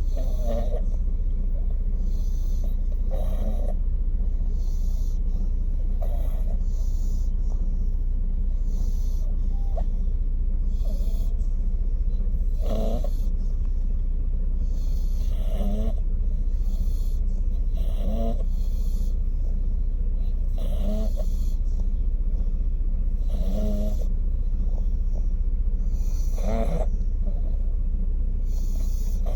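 Pug snoring in its sleep: a short, pitched snore about every two and a half to three seconds, the noisy airway snoring typical of the breed's flat face. A steady low rumble runs underneath.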